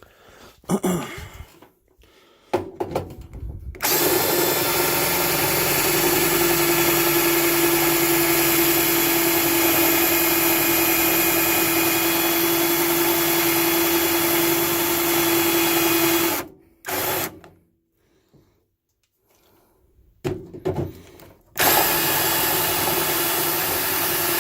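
Power drill driving a Speed Out screw extractor bit into a stripped security screw. It runs at a steady speed for about twelve seconds, gives a short burst, stops, then starts again near the end. A few knocks of handling come before it starts.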